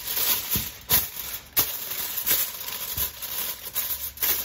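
Aluminium foil crinkling as gloved hands press and fold it down over the rim of a mixing bowl, with several sharper crackles along the way.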